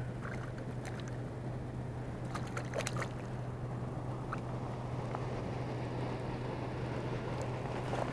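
Hooked perch splashing at the water's surface as it is reeled in, with a few sharp clicks about two and a half to three seconds in, over a steady low hum.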